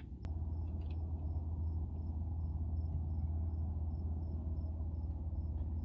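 A cricket chirping steadily, about three chirps a second, over a steady low hum that comes in just after the start.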